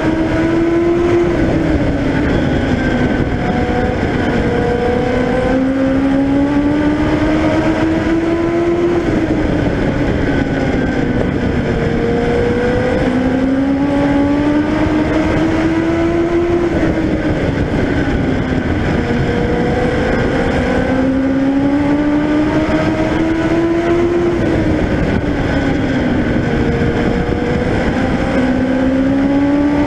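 A Legend race car's engine heard from the onboard camera at racing speed around an oval. Its pitch climbs slowly for several seconds along each straight and drops quickly as the car lifts for each turn, repeating about every seven to eight seconds, with road and wind noise underneath.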